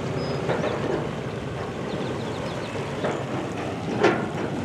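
Steady low rumble of wind on the microphone mixed with idling boat motors, broken by a few brief louder sounds, the loudest about four seconds in.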